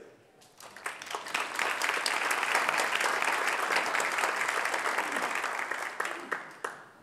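Audience applauding: the clapping builds about half a second in, holds steady, and dies away near the end.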